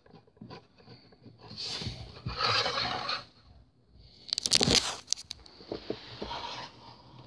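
Hands moving plastic packaging: rustling and scraping, with a short burst of crinkling crackles a little past halfway.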